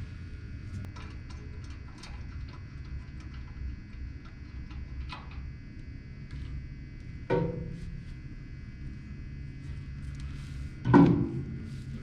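Handling of the sander's heavy removable metal table: small clicks, a knock about seven seconds in and a louder thud with a short ring near the end as the table is set down. A steady low hum runs underneath.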